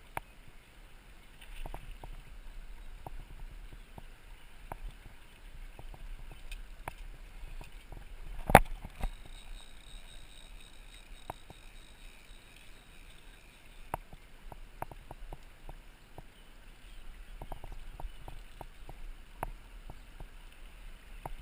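Shallow river water running and lapping over stones, with scattered small clicks and knocks, and one sharp knock about halfway through.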